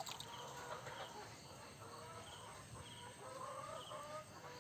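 Faint animal calls: short, steady-pitched cries repeating every second or so, with faint high chirps ticking regularly underneath.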